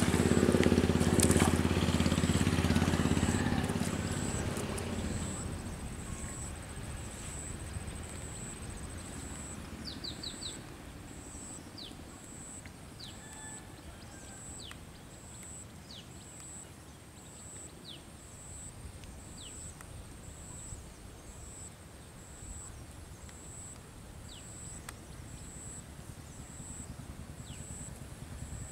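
A motor vehicle's engine is loud at first and fades away over the first four or five seconds. It leaves quiet rural background with scattered short bird chirps and a faint high pulsing tone repeating about once a second.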